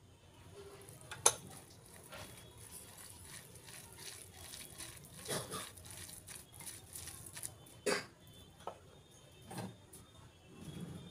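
Fingers squeezing and mixing grated coconut and mustard oil in a cut-glass bowl: soft squelching and rubbing, with a few sharp clicks, the loudest about a second in and another near eight seconds.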